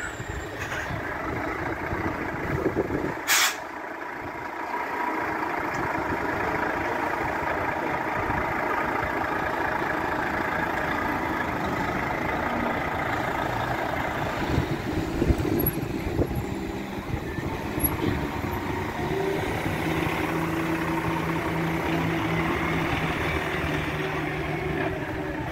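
Diesel engines of Volvo tractor-trailer trucks running as the rigs pull slowly through a junction, with a short sharp air-brake hiss about three seconds in.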